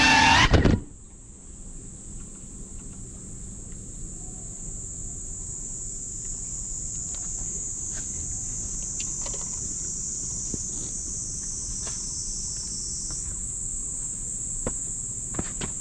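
Background music cuts off under a second in, leaving a steady, high-pitched insect chorus over a low wind rumble, with scattered faint clicks.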